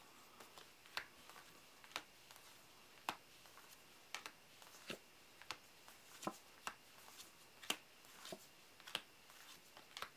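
Glossy Cardinal jumbo playing cards being slid off a stack one at a time, making faint, short ticks about once a second, irregularly spaced.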